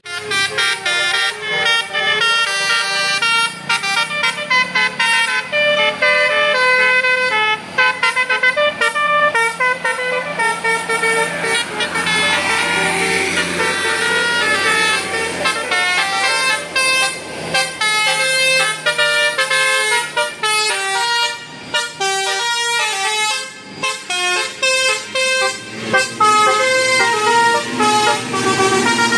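Basuri telolet bus horn playing a fast tune of short, stepped horn notes with no pause, over a bus engine running underneath.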